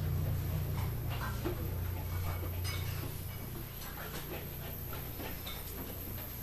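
Outdoor market street ambience: a low rumble that fades out about three seconds in, with scattered short clicks and knocks.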